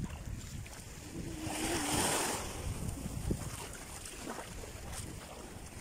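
Small sea waves lapping and washing onto the shore, one wash swelling and fading about two seconds in, with wind rumbling on the microphone.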